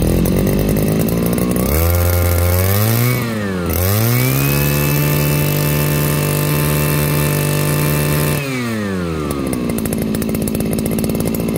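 Saika GZ33VIP 33cc two-stroke brush cutter engine just started and idling, then revved up about two seconds in, dipping for a moment before being held at high revs for about four seconds, then dropping back to idle near the end.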